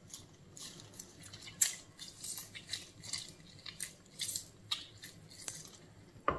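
Half a lemon squeezed by hand in a thin disposable plastic glove: short, irregular crinkling and squelching bursts as the fist closes and the juice runs out, with a sharper click near the end.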